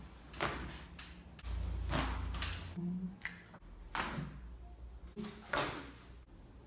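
A run of about eight sharp cracks and knocks at uneven intervals during chiropractic spinal adjustments: joint pops and the patient's body and the adjusting table taking the thrusts. A low hum runs for about a second, starting a second and a half in.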